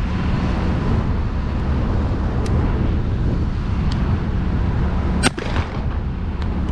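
Steady wind rumble on the microphone, with a single shotgun shot about five seconds in.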